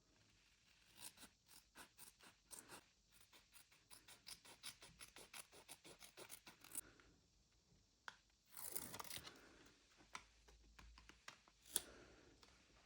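Faint paper handling: a quick run of short scratching strokes for several seconds, then a brief tearing sound about eight and a half seconds in, and a couple of light clicks.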